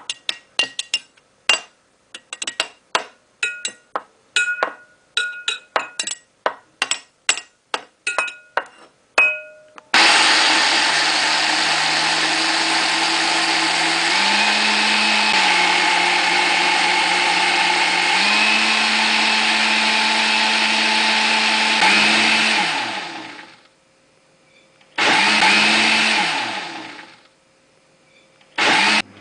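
Quick series of sharp clinking taps, each ringing briefly, then a small electric motor appliance starts and runs loudly and steadily for about twelve seconds, its pitch stepping up and down. It winds down, then is switched on again for two short bursts.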